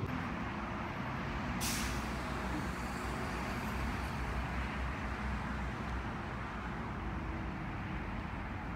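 Steady street traffic rumble, with a short sharp hiss a little under two seconds in.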